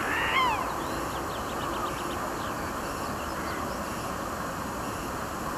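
Songbirds calling over a steady rushing background: a few swooping calls near the start, then a quick run of short high notes about a second in, with scattered chirps after.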